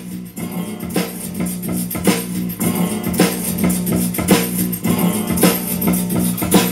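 Music with guitar and percussion keeping a steady beat about twice a second, played through the speakers of a homemade 3D-printed Bluetooth boombox.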